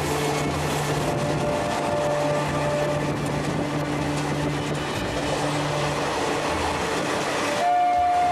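Train running along the line, heard from on board a carriage: a steady rumble and running noise with a low hum. A brief, steady higher tone comes in near the end.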